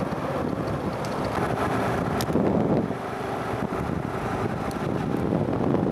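Wind buffeting the microphone of a camera carried on a moving motor scooter, with the scooter's engine and road noise running steadily underneath.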